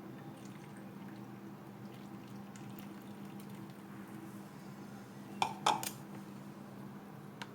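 Steady low hum with a few faint clicks, and a quick cluster of small knocks or clinks about five and a half seconds in.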